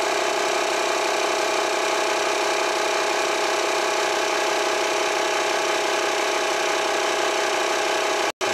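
Wolf 12-volt digital tyre inflator's electric air compressor running, a steady hum with one strong mid-pitched tone. It is pumping air into a car tyre, and the pressure climbs from 14 to 16 PSI. The sound breaks off for an instant near the end.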